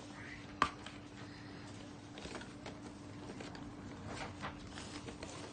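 A cardboard toy box with plastic windows being handled and picked at by hand while it is being opened: one sharp click about half a second in, then faint scattered taps and rustles of the packaging.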